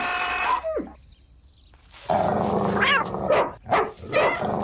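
A dog growling and barking, with a pause of about a second near the start before it carries on.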